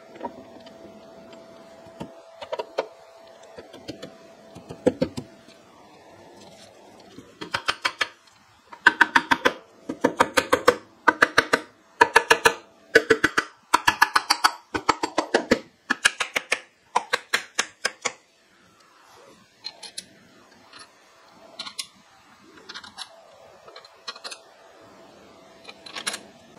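Hand ratchet wrench clicking in quick runs of strokes as the bolts of a milling machine gearbox's front cover are run down, the runs packed together from about a quarter of the way in to two-thirds through. A few scattered metal knocks come before them and lighter, sparser clicks after.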